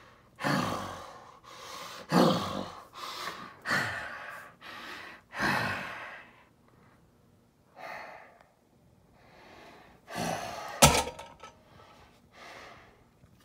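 A man breathing out in forceful huffs, four strong ones about a second and a half apart, then fainter breaths. A sharp knock comes about eleven seconds in.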